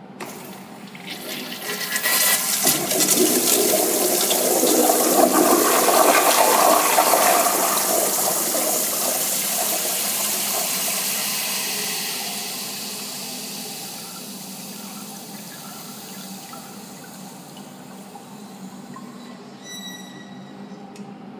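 Crane Whirlton toilet flushed by its flushometer valve: a click, then water rushing powerfully into the bowl. The rush is loudest for several seconds, then dies away to a quieter steady hiss of water. A brief high whistle comes near the end.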